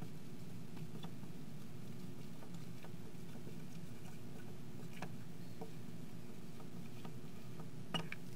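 Fluorescent marker writing on a glass lightboard: faint scattered taps and strokes of the tip on the glass, a little louder near the end, over a steady low room hum.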